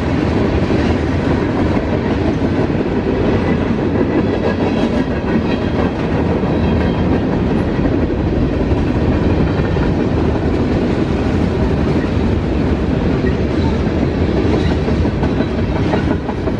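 CSX freight train's tank cars, hopper and lumber flatcar rolling past on steel wheels and rail, a loud, steady rumble with no break.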